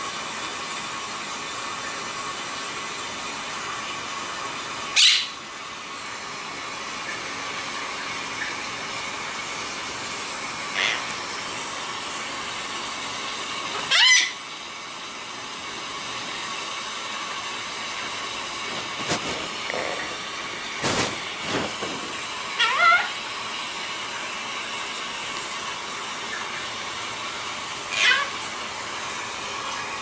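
Blue monk parakeet (quaker parrot) giving several short, sharp squawks, each sweeping up in pitch, over a steady background hiss. A few sharp knocks come around the middle.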